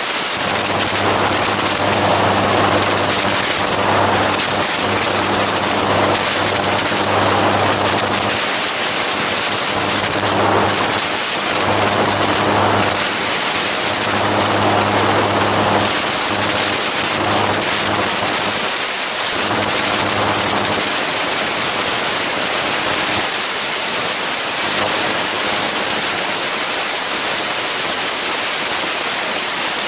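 Gyroplane in flight: wind rushing over the microphone over the steady drone of its engine and propeller. The engine's hum comes and goes under the wind and fades out about two-thirds of the way through, leaving mostly wind noise.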